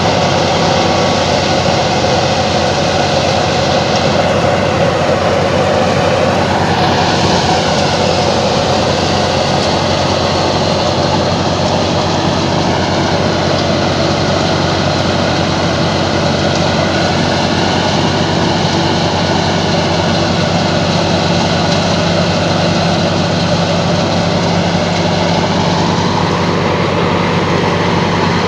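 An old Fiat 480 diesel tractor running steadily under load while it drives a wheat thresher. The engine and the threshing machine make one loud, continuous drone.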